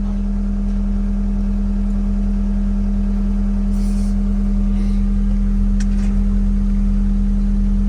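A vehicle engine running steadily at an even speed, with a constant low drone and a fast, even pulse underneath.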